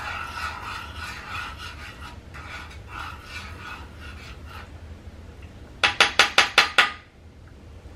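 A utensil scraping and stirring cooked ground beef in a skillet with irregular rasping strokes. About six seconds in come six quick, sharp metallic knocks, like a spoon or spatula rapped against the pan, the last one ringing briefly.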